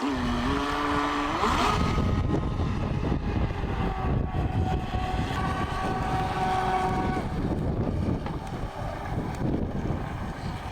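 Remote-control boat's motor running across the water, its whine shifting in pitch with the throttle, one rise about a second and a half in, then held steady for a few seconds. Rumbling wind noise on the microphone underneath.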